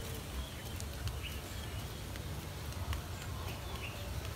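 Open-air rural ambience: a steady low rumble of wind on the microphone, with a few faint, short bird chirps.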